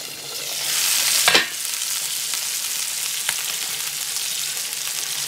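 Chicken breasts frying in a cast iron skillet, a steady sizzle. The sizzle swells as the steel lid is lifted off about a second in, with a short metal clank just after, then settles into even frying as the pieces are turned with tongs.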